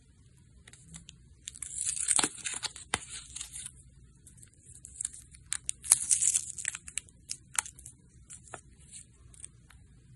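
Foil wrapper of a small dark chocolate bar being torn and peeled open, crinkling in two bursts, about a second and a half in and again about five seconds in, then a few scattered small crackles.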